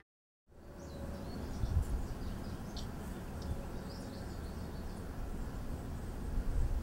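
Outdoor ambience: a steady low rumble with small birds chirping, the chirps mostly in the first few seconds, starting after a brief silence.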